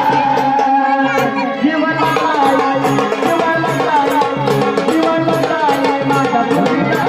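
Instrumental Marathi gondhal folk music: a gliding keyboard organ melody over a steady, fast drum rhythm, with no singing.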